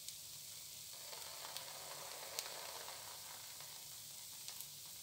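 Vegetable-topped dosa sizzling faintly on a hot oiled dosa pan: a steady hiss with a few light clicks.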